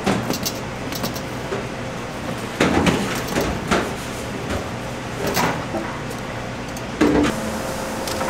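Aluminium sheet pans being handled, with about five separate clanks and knocks of metal trays on wire racks and a table, over a steady kitchen machinery hum.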